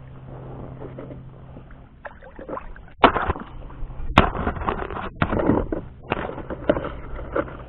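Water splashing and knocks against a kayak while a hooked catfish is fought beside it: quiet at first, then a quick run of sharp splashes and thumps from about three seconds in, over a steady low hum.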